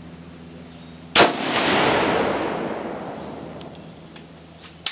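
A single shot from a Swiss K31 straight-pull bolt-action rifle firing a 7.5 mm round, about a second in, with a long echo that fades over about three seconds. Near the end come a few light metallic clicks as the bolt is worked.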